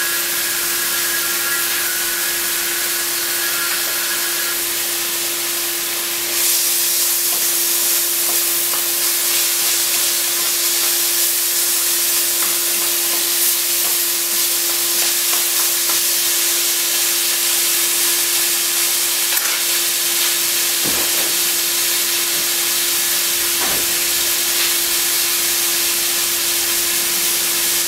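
Chicken and vegetables sizzling in a hot wok as they are stir-fried, a steady frying hiss that grows louder about six seconds in. A steady low hum runs underneath.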